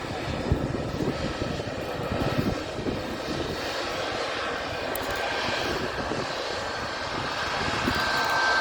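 Jet airliner engines running, a steady rush of noise that grows slightly louder, with a thin high engine whine coming in near the end.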